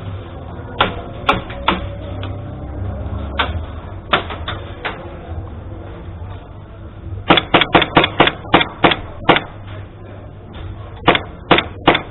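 Airsoft gun shots: a few single shots early on, then a quick run of about eight shots at roughly four a second, and three more near the end.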